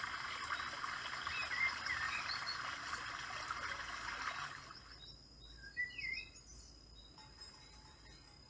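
Nature ambience: a stream runs with a steady rush that fades out about four and a half seconds in. Birds chirp throughout and are heard clearly once the water fades.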